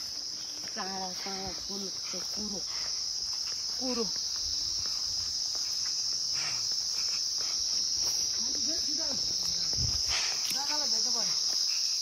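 Insects trilling in a steady, unbroken high-pitched chorus.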